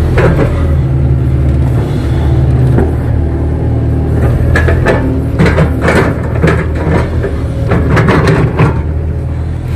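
Kato crawler excavator's diesel engine running steadily under work, with a run of knocks and clatters through the second half.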